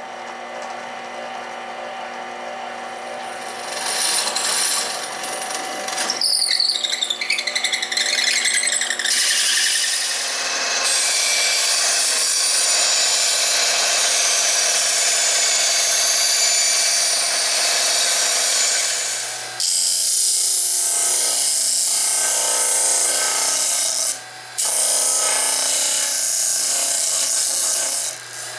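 Workshop power tools cutting plywood in turn: a drill press driving a 2 3/8-inch hole saw through plywood, then a band saw cutting out the rings, then a disc sander dressing their edges. The motors run steadily with louder cutting noise while the wood is being worked.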